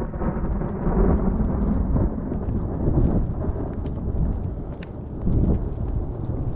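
Thunder rolling: a long, low rumble that builds as it begins, eases a little about five seconds in and swells again near the end, with a few light ticks over it.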